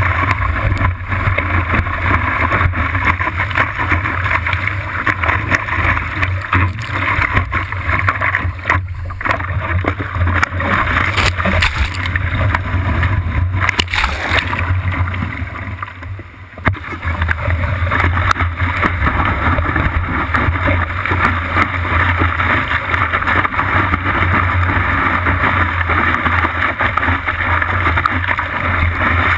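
Surf and whitewater rushing and splashing around a surfboard as it rides a wave, heard from a camera on the board's nose, with a steady low rumble under the hiss. The sound drops briefly about sixteen seconds in.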